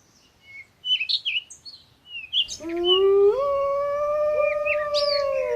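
Birds chirp briefly, then about halfway in a wolf howls: one long call that rises in pitch and then holds steady.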